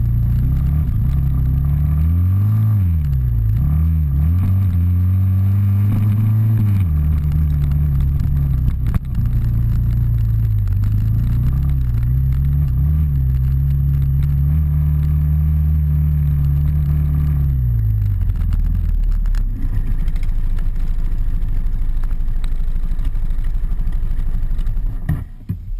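Off-road motorcycle engine on the move, its pitch swinging up and down with the throttle, then pulling steadily. It drops to a low idle about eighteen seconds in and stops abruptly near the end.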